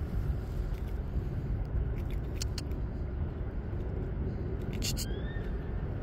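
Steady low outdoor rumble, with a few short sharp clicks about two and a half seconds in and again near five seconds.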